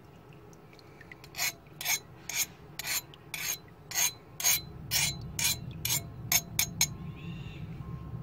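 An HRC60 hardness test file scraped in about a dozen short strokes across the edge of a hardened steel axe blade, roughly two strokes a second and coming faster near the end. This is a file test of whether the blade's steel took the hardening.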